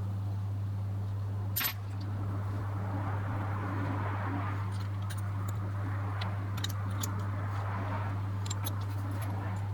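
Small metal lens parts and tools being handled, with a sharp click about a second and a half in and light scattered ticks later on, over a steady low hum.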